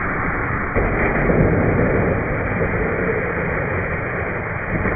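Bulk ice vending machine dispensing loose ice: cubes tumble down a metal chute into a plastic cooler in a steady, rattling rush that grows heavier about a second in.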